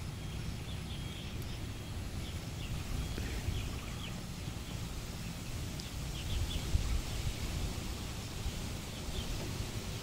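Small birds chirping in short, scattered calls over a steady low outdoor rumble.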